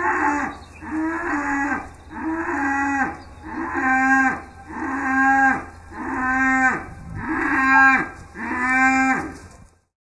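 A cow mooing in a quick series of about nine short calls, roughly one a second. The calls stop shortly before the end.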